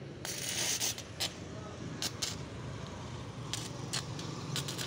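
Electric arc welding on steel trusses: a hiss and crackle that starts abruptly just after the beginning, with sharp snaps through it.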